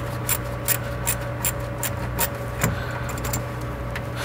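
Hose clamp on a charge tube being loosened with a socket wrench: sharp, even clicking about two to three times a second, pausing briefly partway through before starting again, over a steady low hum.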